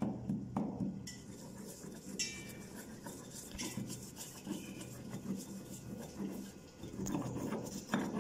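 Stone pestle grinding black peppercorns in a stone mortar: repeated grating, rubbing strokes of stone on stone with light knocks, crushing the pepper coarsely.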